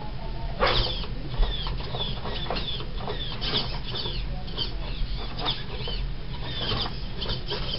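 Hobby RC servos driving an animatronic mask's mouth and eyes, whirring in many short bursts, some sliding briefly up or down in pitch, with a few sharper clicks. A steady low hum runs underneath.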